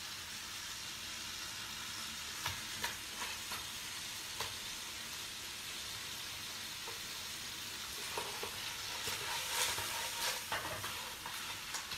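Clams in their shells sizzling as they are stir-fried in a pan, with a metal ladle clicking and scraping against the pan now and then. Near the end the pan is tossed and the clicks and clatter come thicker.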